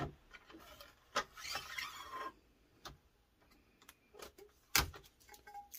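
Heat tape being pulled off its roll, a short rasping strip about a second in, amid light clicks and taps of handling, with one sharp click near the end.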